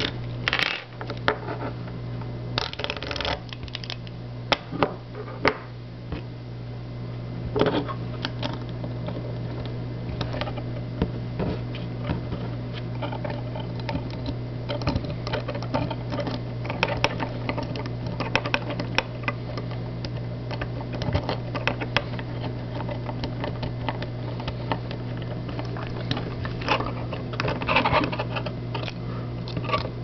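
Metal lock pick scraping and clicking inside a small cylinder lock for a glass display case as it is picked, in irregular light metallic clicks and scratches with a few sharper clicks.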